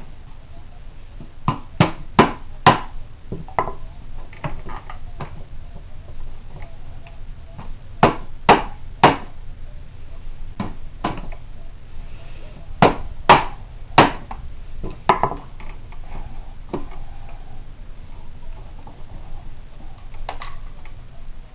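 Sharp knocks in clusters of three or four, with scattered single knocks between: a 30-round detachable magazine being struck to force it into a Yugoslavian SKS rifle's magazine well, which is a tight fit.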